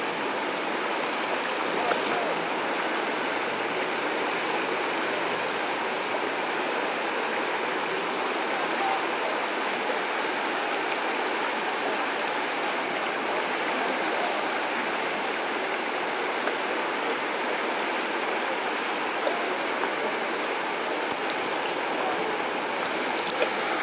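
River water rushing steadily over shallow rapids and riffles.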